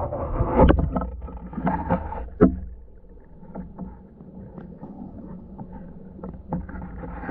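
Canoe being paddled, heard underwater from a camera below the hull: muffled water sloshing with irregular sharp knocks, the strongest about two and a half seconds in, settling quieter after about three seconds.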